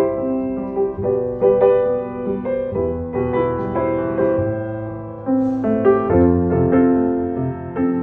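C. Bechstein Academy A190 grand piano being played: a melody over sustained chords and low bass notes, the notes ringing on into each other.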